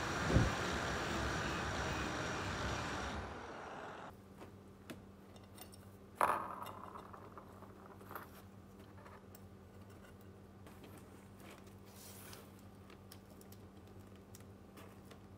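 Drill press running as its bit cuts through the steel tang of a knife blank, fading out after about four seconds. Then small clicks and knocks of metal pins and the blade being handled on a table, with one sharper knock about six seconds in.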